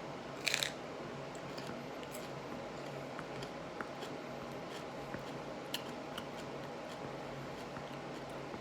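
A crisp crunch as a raw serrano pepper is bitten, about half a second in, followed by a few faint clicks of chewing.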